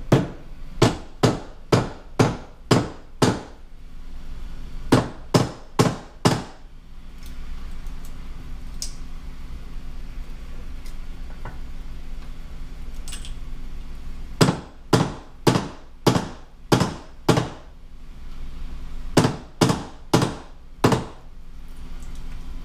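Rubber mallet tapping the electric motor of a Johnson Evinrude FasTrak power tilt/trim unit to break it free of the housing, where it has sat stuck a long while. There are four bursts of quick taps, about three a second, with a long pause in the middle.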